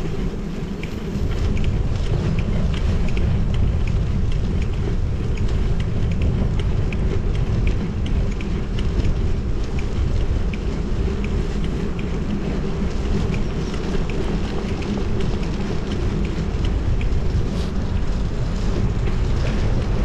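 Strong wind buffeting a GoPro 10's microphone while cycling, a steady heavy low rumble that the camera's wind-noise suppression does not take out, with faint light ticking over it.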